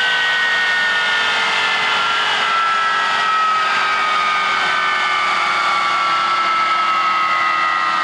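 Avro Vulcan XM655's Rolls-Royce Olympus turbojet engines running, a steady jet rush with several whine tones that slide slowly down in pitch.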